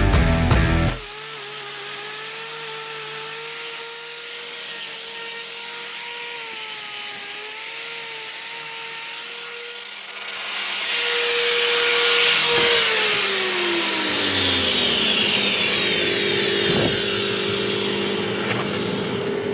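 Background music cuts off about a second in. After that, an electric angle grinder with a hoof-trimming disc runs with a wavering whine. From about ten seconds a louder rasping hiss comes in as the disc grinds the cow's hoof horn; the motor's pitch then falls away as it slows, and near the end it runs steadily again.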